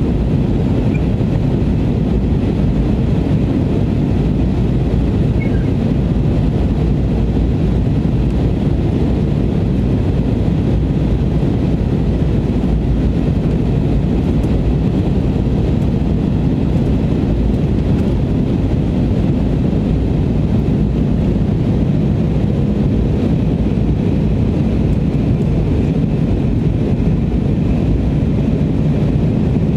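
Steady low rumble of a jet airliner's engines and rushing air heard inside the passenger cabin, unchanging throughout, as the aircraft descends toward landing.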